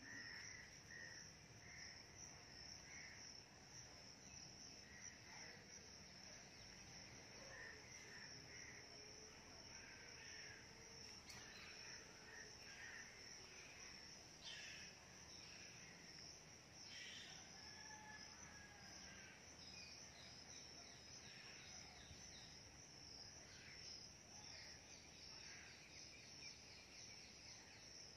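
Faint, steady high-pitched trilling of insects, with scattered short bird chirps over it.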